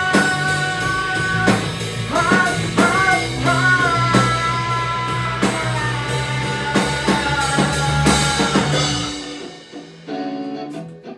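Rock song with a drum kit, bass and a singer holding long, sliding high notes. The band stops about nine seconds in, and a few plucked acoustic guitar notes follow.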